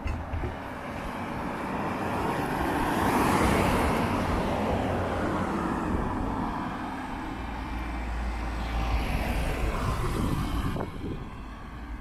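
Cars driving past on an asphalt road: tyre and engine noise swells to a peak a few seconds in, eases, then swells again and drops off near the end.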